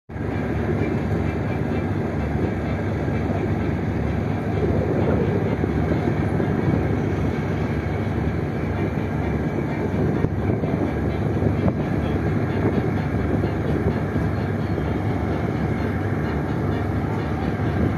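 A boat engine running steadily, a constant low rumble with no change in pace.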